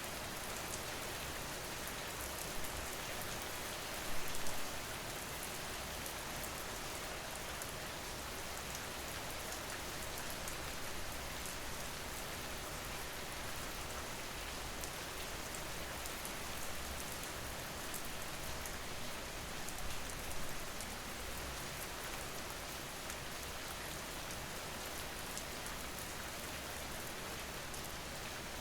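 Steady rain falling on a car, heard from inside the car, with a few brief louder moments about four seconds in and again near twenty seconds.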